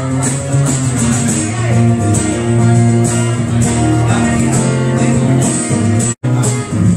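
Live blues band playing an instrumental passage, with guitar to the fore. The sound cuts out for an instant about six seconds in.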